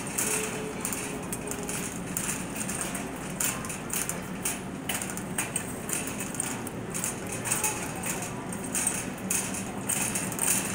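Big-box store ambience: a steady low hum with irregular light clicks and rustles throughout.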